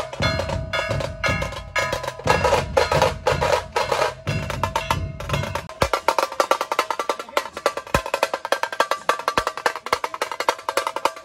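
Dhol-tasha pathak playing: deep dhol beats under the fast, sharp strokes and rolls of tashas. About six seconds in the dhols stop and the tashas carry on alone in a rapid roll.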